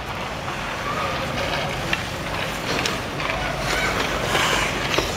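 Ice hockey practice on an indoor rink: skate blades scraping across the ice with sharp clacks of sticks and puck now and then, and faint children's voices in the background.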